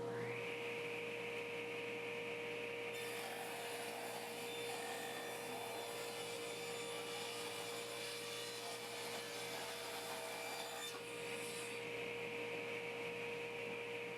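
A woodworking power tool's motor spins up and runs with a steady whine. From about three seconds in to about eleven, wood is cut through it, adding a rushing hiss.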